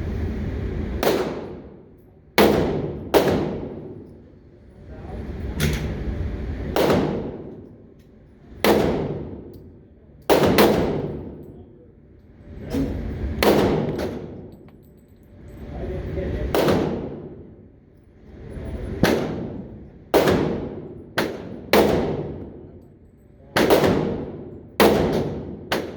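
Smith & Wesson M&P Shield pistol in .40 S&W firing about twenty shots, some single and some in quick pairs or strings, each shot a sharp crack followed by a ringing tail of about a second.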